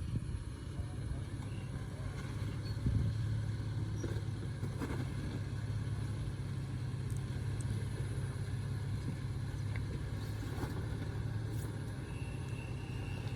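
Off-road 4x4's engine running steadily, with a few faint knocks.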